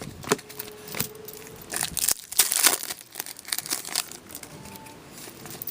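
Wrapper of a 13-14 Panini Contenders hockey card pack crinkling and tearing as it is ripped open, in short, irregular crackles.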